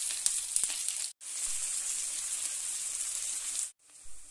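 Sliced onions sizzling in hot oil in a kadai, with crackling in the first second. The sizzle cuts out briefly twice, about a second in and near the end, and is quieter after the second break.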